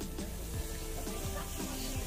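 Background music with a steady beat of about two drum hits a second.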